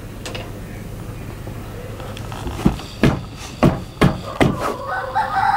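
Wooden knocks from a hand loom as the weaver beats the weft into place: about six sharp knocks in quick succession in the second half. A rooster starts crowing near the end.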